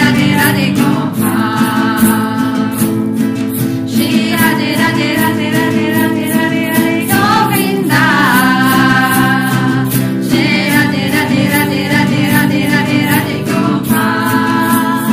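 A group singing a devotional chant together in several voices, in long sung phrases, over a steady rhythmic accompaniment of about two strokes a second.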